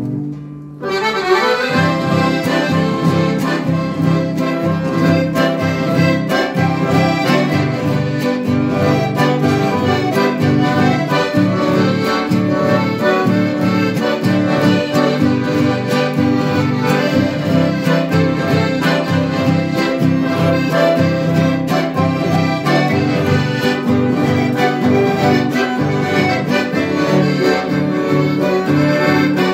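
Accordion-led traditional music playing continuously, starting about a second in.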